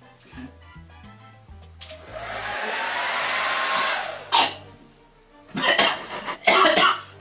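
Hair dryer switched on about two seconds in, its motor whine rising as it spins up while it blasts out the baby powder loaded into it; it cuts off after about two seconds. Several loud, sudden bursts of sound follow.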